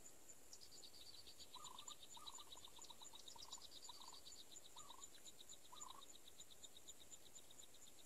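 Faint background of insects and frogs. A steady high ticking repeats about five times a second, and a long, fast, high trill drops slightly in pitch. A few short, lower calls come in groups through the middle.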